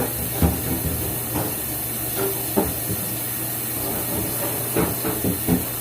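Steady hiss with a low hum under it, and several light knocks and clunks of household items being handled and set down.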